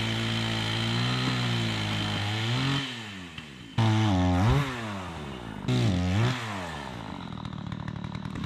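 Takeuchi TL130 tracked skid steer's diesel engine working under heavy load, its pitch sagging and recovering several times, with two sudden louder stretches about four and six seconds in.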